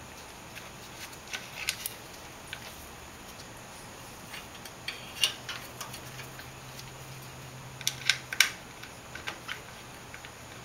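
Scattered small metal clicks and taps of hands fitting linkage and parts onto a Nikki carburetor on a Briggs & Stratton Intek engine. They come in short clusters, the loudest a little past the middle.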